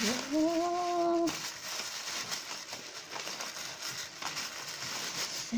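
A voice makes a drawn-out, slightly rising exclamation for about a second at the start. Then comes a steady rustling and crinkling of tissue paper being handled and pulled away.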